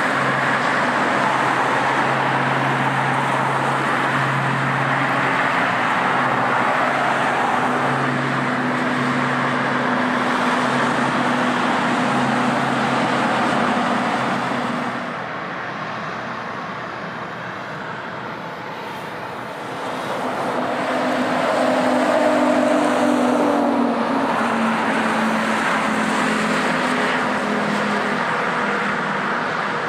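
Steady engine noise with a low hum that dips about halfway through, then swells again with its pitch falling, like a machine passing by.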